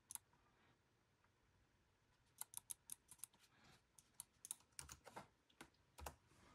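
Faint keystrokes on a 2010 MacBook Pro's keyboard: one click near the start, then a quick irregular run of key taps from about two seconds in until about six seconds.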